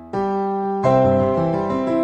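Solo piano music: a chord struck just after the start and another about three-quarters of a second later, each ringing and fading, with lower notes shifting beneath near the end.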